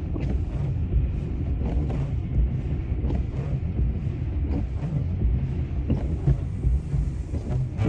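Steady low road and tyre rumble inside the cabin of a Tesla Model X driving on a snowy highway, with faint short knocks scattered through it.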